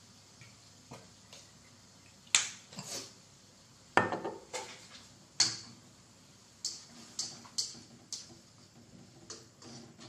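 Kitchenware being handled around a steel wok: a series of sharp clinks and knocks of utensils and containers, the three loudest about a second and a half apart in the first half, followed by lighter taps.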